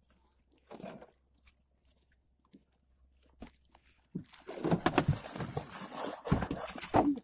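A hooked kingfish thrashing and splashing at the surface against the side of a small boat as it is hauled in on a handline, starting suddenly about four seconds in after a few faint knocks.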